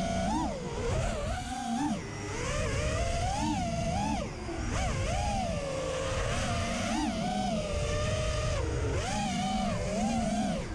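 FPV racing miniquad's brushless motors and propellers whining, heard from the onboard GoPro, the pitch sweeping up and down with each throttle change. A steady rushing noise lies beneath it.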